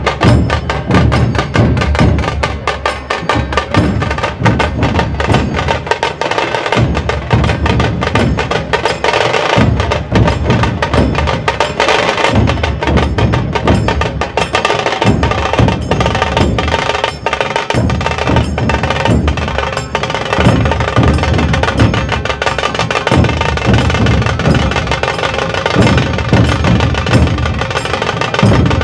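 Dhol tasha ensemble playing loudly: large barrel dhols beating a heavy low rhythm under a dense stream of rapid, sharp tasha drum strokes.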